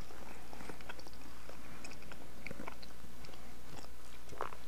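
Quiet close-miked mouth sounds of people chewing chocolate candy bars and sipping red wine: small scattered wet clicks, one a little louder near the end.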